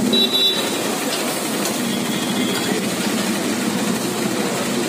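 A steady, engine-like low rumble with a fast pulse, with a few light scrapes of a metal spatula on a flat iron griddle as kothu parotta is pushed and stirred.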